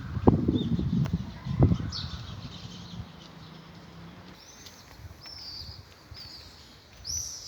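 Small birds chirping: a series of short, high, arching calls that grow louder toward the end. Two sharp knocks over a low rumble come in the first two seconds.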